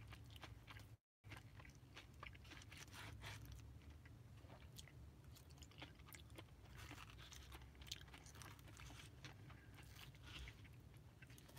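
Faint close-up chewing of a mouthful of shrimp and rice bowl: many small mouth clicks over a steady low hum. The sound cuts out completely for a moment about a second in.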